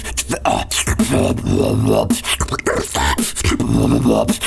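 Hip-hop beat with DJ turntable scratching: short vocal samples cut back and forth in quick strokes.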